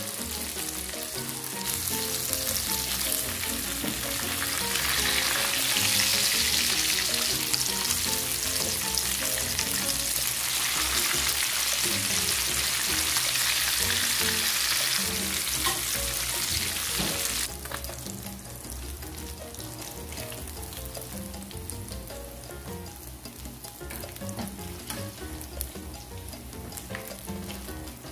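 Breaded tilapia fillets frying in hot oil in a pan: a dense, steady sizzle. About two-thirds of the way through, the sizzle drops suddenly to a softer level.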